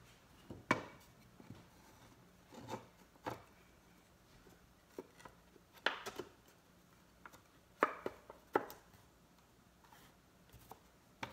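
Wooden frame strips knocking against the tabletop and each other as they are slid and pressed into place around a thin plywood sign panel: a scattering of separate short wooden knocks, with two close pairs about six and eight seconds in.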